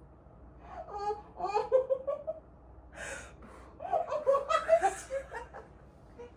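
Laughter in two bouts, with a sharp breath drawn in between.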